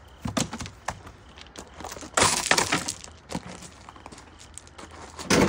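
Footsteps crunching on loose gravel: a few scattered steps, with the loudest run of crunches about two seconds in and another near the end.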